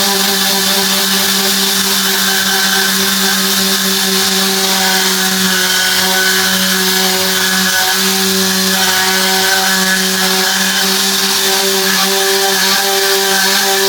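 Car-interior cleaning machine running steadily: a motor hum held at one pitch under a loud rush of air. The motor spins up just before and keeps going without a break.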